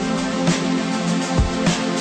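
Electronic background music with a steady kick-drum beat and sustained synth tones.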